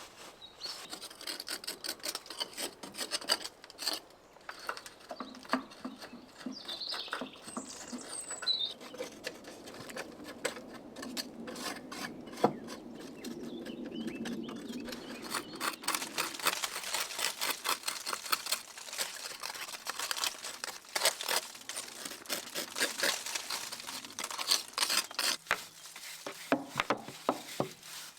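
Rapid, irregular scraping and scratching of a hand tool cleaning out mortar joints, busiest in the second half.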